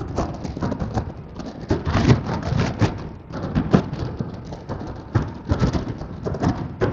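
Wind buffeting the microphone on a moving motorcycle: an uneven run of crackling thumps over a low rumble.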